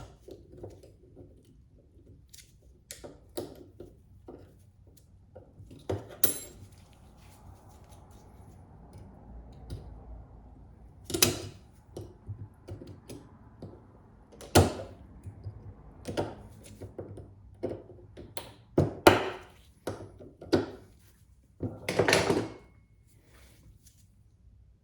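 Scattered metal clicks, taps and knocks of hand tools and small parts as a U-joint retaining clip is fitted into the bearing cup groove of a double cardan joint, with several louder knocks along the way.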